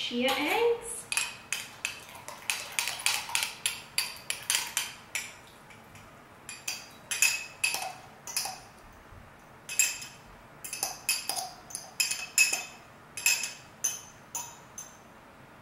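A metal spoon clinking and scraping against the inside of a small glass jar, scooping thick gelled chia egg out into a mixing bowl. The clinks come quickly, several a second, for the first few seconds, then turn sparser and irregular.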